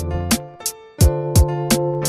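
Background music with a steady beat: plucked guitar-like notes over a drum with a sharp hit about three times a second.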